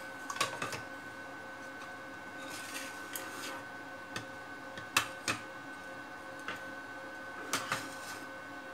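Scattered clicks and knocks of a metal-cased switch-mode power supply being handled and set down on a wooden workbench, loudest about five seconds in, with a brief scrape near three seconds. A faint steady high tone runs underneath.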